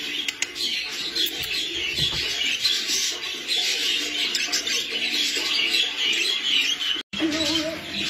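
English budgerigars chirping and chattering continuously as a group, over background music. The sound cuts out for an instant about seven seconds in.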